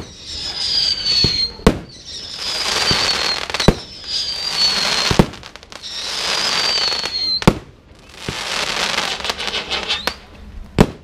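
Fireworks going off one after another: each shot is a hissing whistle that falls a little in pitch for about a second and a half, cut off by a sharp bang. There are about six bangs, with a longer crackling hiss before the last one near the end.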